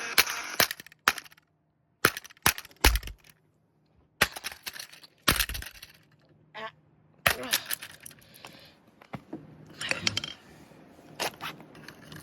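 Irregular sharp cracks and knocks of a cheap plastic Bluetooth speaker casing being handled and prised apart, with short quiet gaps between them. Music from the speaker cuts off within the first second.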